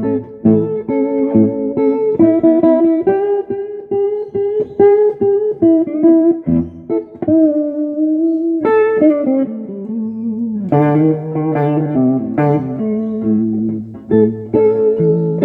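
Electric guitar played through a 1959 Magnatone 260A valve amp: single-note lines in the first half, then fuller strummed chords from about eleven seconds in.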